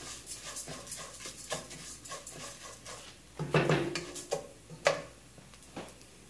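A wooden spoon stirring and scraping dry rice as it toasts in oil in a nonstick pot, making a run of light scrapes and grain clicks. There is a louder knock about three and a half seconds in and another sharp knock near five seconds, after which it quiets as the spoon is left resting in the pot.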